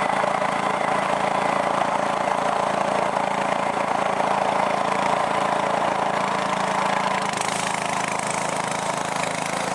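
Boat engine running steadily with a constant drone.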